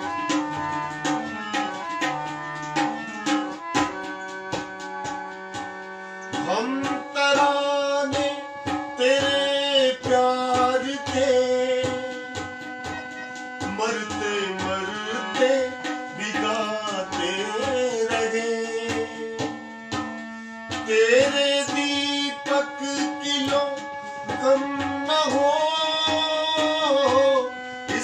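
Harmonium and tabla playing together: held harmonium notes over a steady tabla rhythm. From about six seconds in, a man's voice sings the melody over them with bending, ornamented lines.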